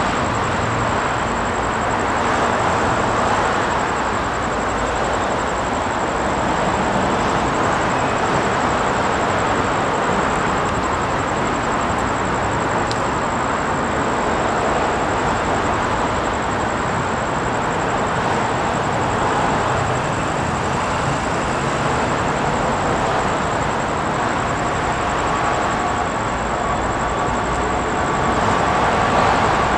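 Train running: a steady, continuous rumble and rail noise without a clear beat.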